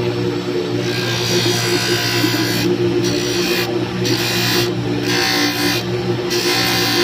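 Electric motor running a sanding disc with a steady hum, while a piece of wood is pressed against the spinning disc for a hissing, rasping sanding sound. From a few seconds in the sanding breaks off briefly about once a second as the wood is lifted and repositioned.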